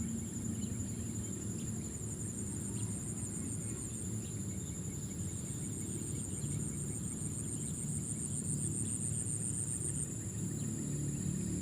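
Insects, crickets or similar, keep up a steady, finely pulsing high-pitched chorus over a low, even rumble.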